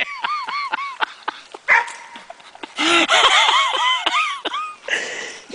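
Puppies yipping and whining: two rapid runs of short, high, arching yelps, the second about halfway through and louder, over a rush of scuffling noise.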